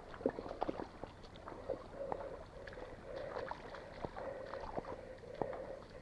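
Footsteps sloshing through a shallow stream: a run of irregular splashes and knocks.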